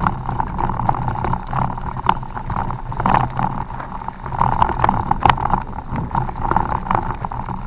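Mountain bike rolling over a rough forest trail: a steady run of rattles and sharp knocks from the bike, with a low rumble of wind on the microphone.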